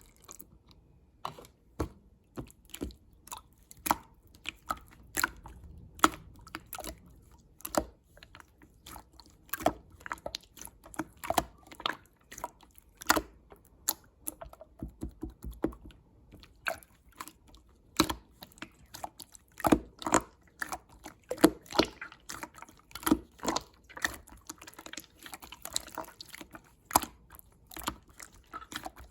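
Clear slime being squished and pressed by hand, making irregular wet clicks and pops, a few a second, growing denser in the second half.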